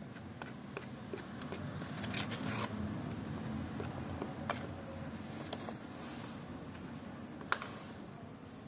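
A hand tool scraping through wet cement-based tile grout mixed with SBR latex. It makes an uneven run of soft scrapes and small clicks, with one sharper tap about seven and a half seconds in.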